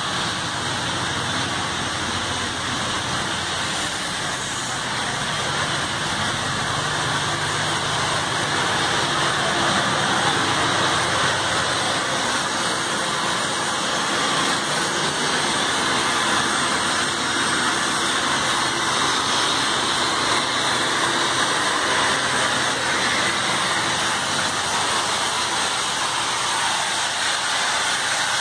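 Industrial boiler plant running: a steady, loud rushing noise with a low hum underneath, growing a little louder about eight seconds in.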